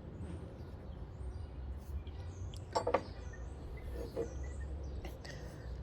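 Faint background of a steady low hum with scattered short high chirps like small birds. A couple of brief handling sounds come about three and four seconds in.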